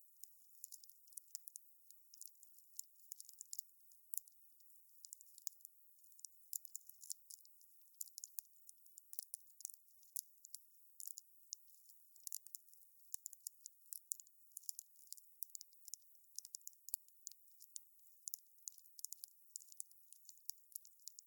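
Wood fire crackling, with a constant irregular stream of small sharp pops and snaps. The sound is thin and high, with no low roar or rumble.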